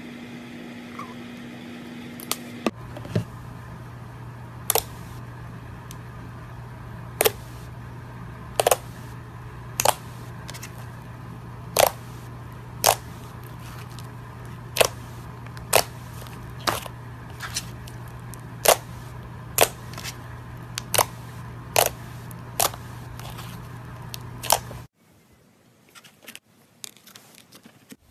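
Slime being worked by hand, letting off sharp pops roughly once a second over a steady low hum. Near the end the hum cuts off and only faint squishing is left.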